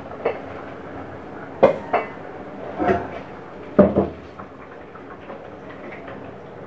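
Pots and pans clattering on a gas stove's grates as a pan is set down and shifted, several sharp knocks in the first four seconds.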